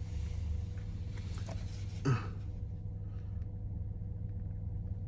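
Quiet room tone: a steady low hum, broken about two seconds in by one short, falling vocal sound.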